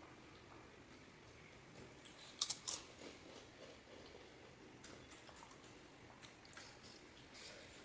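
Crisp panipuri shells being bitten and chewed: a few sharp crunches in quick succession about two and a half seconds in, then faint scattered crackles.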